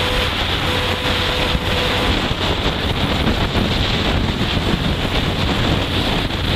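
Heavy wind rushing over the microphone of a Honda CG 160 Fan motorcycle at a steady highway cruise of about 80 km/h, with the single-cylinder engine running evenly underneath.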